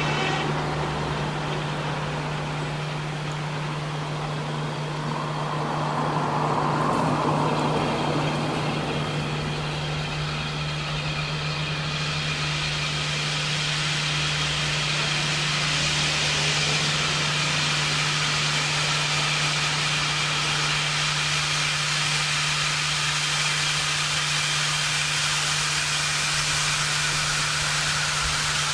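Steam locomotive No. 15 Earl David approaching under steam. Its sound grows steadily as it nears, with a hiss building from about halfway through.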